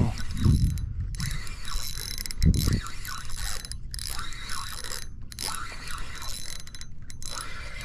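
Spinning fishing reel worked against a hooked jack crevalle, its gears ratcheting and clicking with short pauses. A couple of dull thumps come about half a second and two and a half seconds in.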